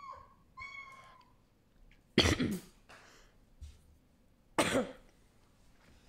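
A person coughing twice, a short loud cough a little over two seconds in and another about two and a half seconds later. Just before the first cough a high squeaky tone sounds briefly and stops.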